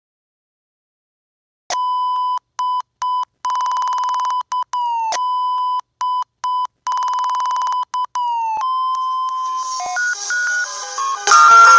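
Colour-bars test tone, edited: after about two seconds of dead silence the steady one-note beep comes in, chopped on and off, stuttered rapidly twice, with short downward pitch drops. Near the end a synthesized melody layers in over it and gets louder.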